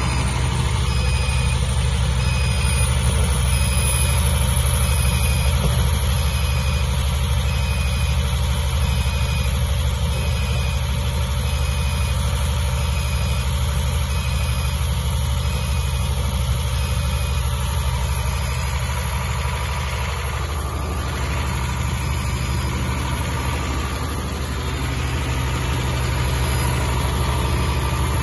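Diesel engine of a 275 kVA generator set running steadily under load, with about 260 amps flowing on each of its three phases. It makes a constant deep drone with a thin high whine over it.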